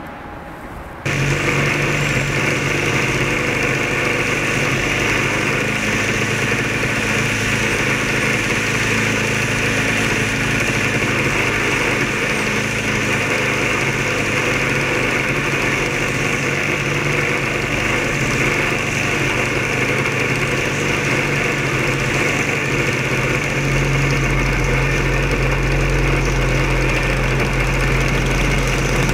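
Fixed-wing drone's motor and propeller running steadily, picked up by a camera mounted on the airframe: a loud, even droning tone that cuts in about a second in. Near the end it gets slightly louder and a deeper rumble joins in.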